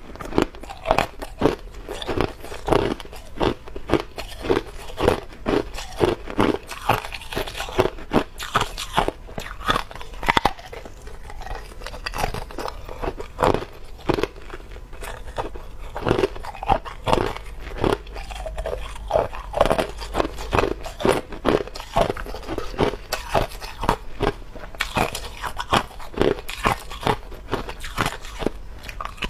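Hard clear ice being bitten and chewed close to a lapel microphone: a continuous run of sharp crunches and cracks, several a second, as the pieces break between the teeth.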